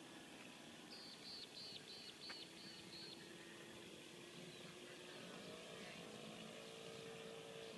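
Faint outdoor sound: a bird gives a quick run of about seven short high chirps. About five seconds in, a distant model-aeroplane glow engine hums faintly, rising in pitch and then holding steady.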